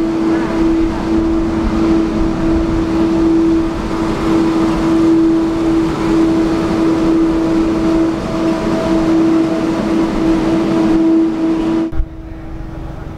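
Hino truck-mounted road sweeper running close by, a steady droning hum over the noisy rush of its brushes and suction. It drops suddenly to a much quieter background about a second before the end.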